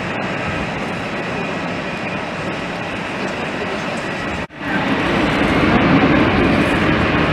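Steady roar of jet aircraft engines. It cuts off abruptly about four and a half seconds in, then comes back louder and deeper.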